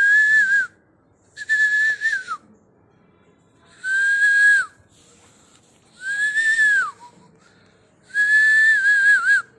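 A person whistling five held notes, each about a second long, with a breathy hiss; each note ends in a falling glide, and the last one wavers down before it stops.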